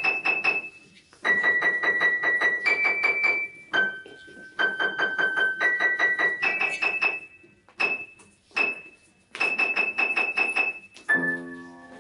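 Keyboard music of fast repeated notes, several a second, stepping between pitches. It stops and restarts several times with short breaks, and changes to a held, fuller chord-like sound near the end.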